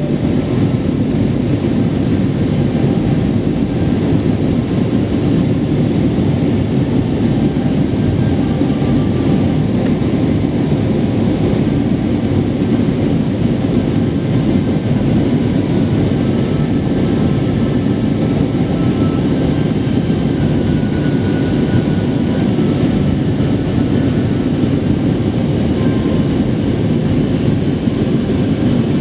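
Steady jet airliner cabin noise in flight: engine and airflow noise heard inside the passenger cabin, holding even throughout.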